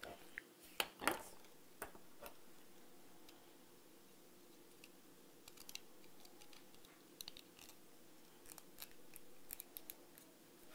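Small plastic parts of a Chevrolet Aveo key fob handled and pressed together: faint scattered clicks and scrapes, with a couple of louder clicks about a second in and a run of small clicks in the second half.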